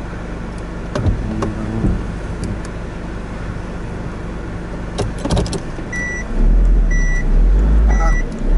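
Car driving on beach sand, heard from inside the cabin: a steady engine and tyre rumble with a few knocks. About six seconds in, a much louder low rumble comes up and a short in-car warning beep starts sounding about once a second.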